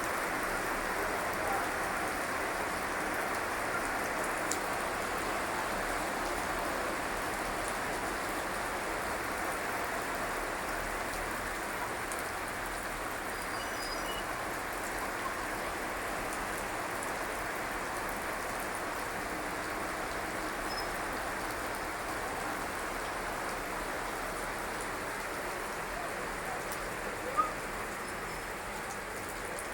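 Heavy rain falling steadily, a constant even hiss of drops. There is one brief sharp tap near the end.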